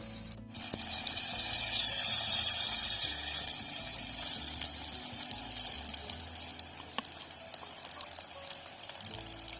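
Loud rushing hiss of water that starts abruptly about half a second in and slowly fades over several seconds, with a few light clicks afterwards; quiet background music runs underneath.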